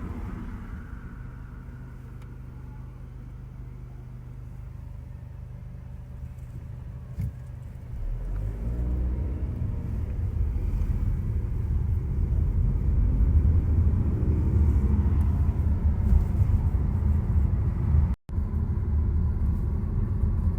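Car driving: a low road and engine rumble that grows louder about eight seconds in, with the engine note rising as the car speeds up. The sound cuts out for a moment near the end.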